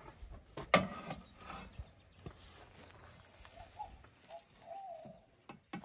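A metal spoon knocks and scrapes in a small enamel cup while a pinole drink is stirred; the loudest strike, under a second in, rings briefly. A faint wavering animal call is heard from about three and a half seconds in.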